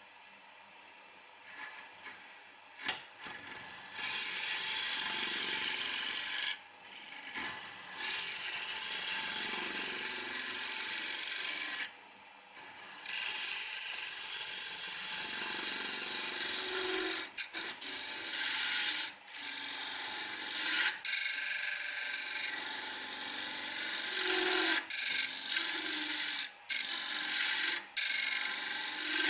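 Wood turning on a lathe: a homemade chisel cuts into the spinning wood with a continuous hissing, scraping noise. The noise breaks off briefly many times where the tool is lifted off, and the cutting starts about four seconds in.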